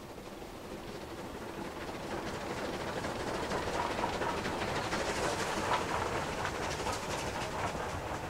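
Unrebuilt Bulleid Pacific steam locomotive working hard past, its exhaust beats growing louder as it nears. The loudest part is about halfway through, then the train's coaches roll by.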